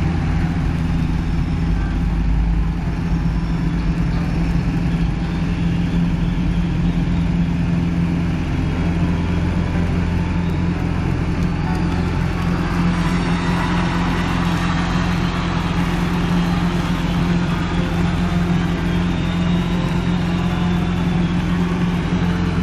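Robin light aircraft's piston engine running steadily, a continuous drone at an even pitch.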